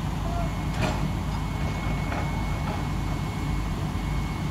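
Diesel engine of heavy construction machinery running steadily with a low drone, and a single sharp knock about a second in.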